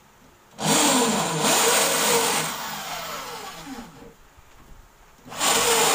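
Corded electric drill run in two bursts, the first about half a second in and tailing off after a couple of seconds, the second starting near the end, its motor pitch rising and falling as it works under load.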